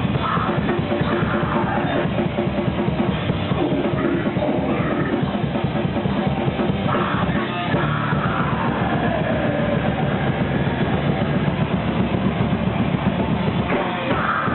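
Heavy metal band playing live: drum kit and electric guitars, with pitches gliding up and down over a dense, steady wall of sound, heard through a low-quality recording that cuts off the treble.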